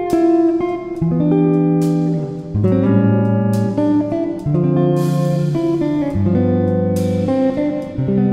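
Background instrumental music with chords changing about every second.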